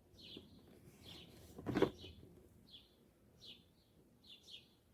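A bird chirping in the background, with short high chirps repeating about once a second. A single brief knock or rustle comes about two seconds in.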